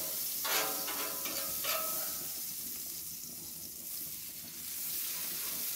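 Butter sizzling and spitting on a hot flat-top iron griddle as a spatula spreads it across the plate, with a steady hiss throughout.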